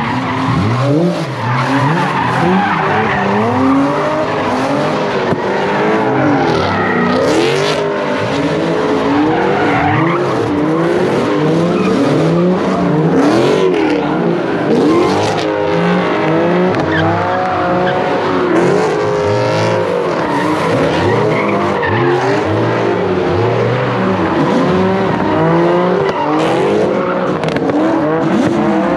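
A car doing donuts: its engine revving up and down again and again while the tyres squeal and skid on the pavement.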